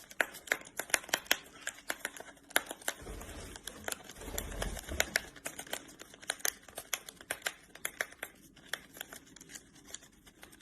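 Packaging being scratched and picked open: quick, irregular small clicks and crackles, with a couple of soft low bumps about three to five seconds in.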